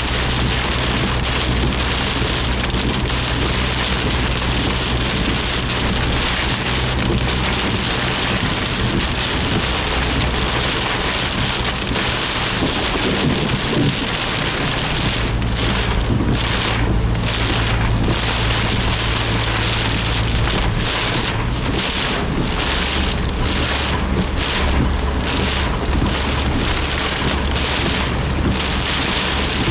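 Heavy downpour drumming on a Suzuki Jimny's body, heard from inside the car, with the steady low hum of its engine underneath that shifts in pitch a few times.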